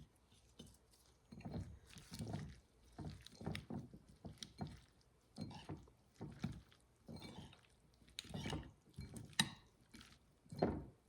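Chopped romaine lettuce being tossed in a creamy mayonnaise dressing in a bowl: repeated soft, wet swishing strokes about once a second, a few of them louder near the end.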